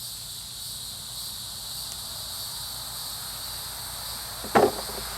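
Steady, high-pitched insect chorus in several unbroken bands, with one sharp knock about four and a half seconds in.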